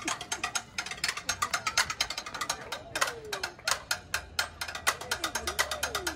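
Rapid, irregular clicking, several clicks a second, with a few short sliding tones that rise and fall in pitch starting about three seconds in.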